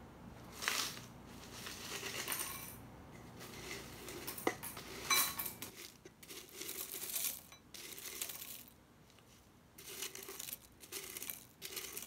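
Dry cereal flakes (Fitness cereal) pouring from a jar into a glass bowl, nudged out with a plastic scoop, rattling and rustling against the glass in irregular bursts. One sharp clink of jar or scoop against the bowl about four and a half seconds in.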